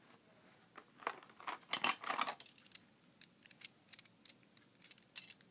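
A Beyblade's die-cast metal wheel being handled and worked out of its clear plastic blister tray: an irregular run of light metallic clinks and plastic clicks starting about a second in.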